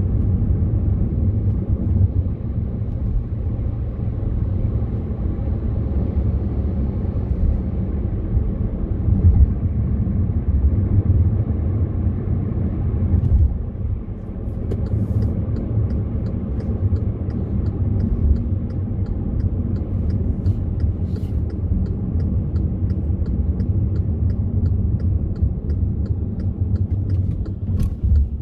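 Inside a moving car's cabin: the steady low rumble of tyres and engine while driving, dropping a little about halfway through as the car slows. A regular light ticking runs through the second half.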